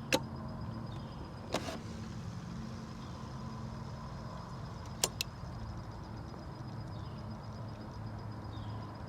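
Steady low electrical hum with a faint high whine from a battery charger charging the motorcycle's battery. Several sharp clicks cut through it: one right at the start, one about a second and a half in, and two close together about five seconds in.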